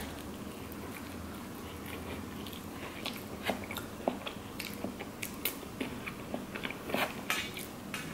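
A person chewing a mouthful of bean and meat burrito close to the microphone: scattered short mouth clicks and smacks, coming more often from about three seconds in.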